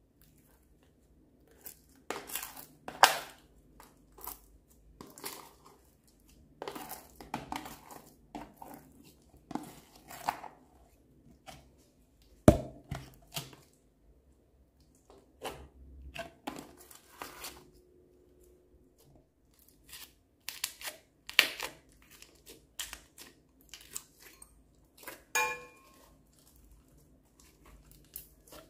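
Slime with foam beads being squished, kneaded and pulled by hand, giving irregular sticky crackles and pops. There is one sharp knock about twelve seconds in and a short squeak near the end.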